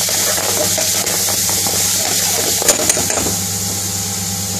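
Curry sauce sizzling in an aluminium frying pan while a metal ladle stirs and scrapes through it, with two sharp clinks of the ladle on the pan a little under three seconds in, over a steady low hum.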